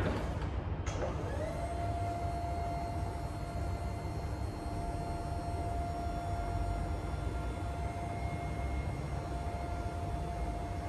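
Electric hydraulic lift pump of a Still EXV 20i pallet stacker running as the duplex mast raises the forks: a click about a second in, then a steady whine that rises briefly to its pitch and holds.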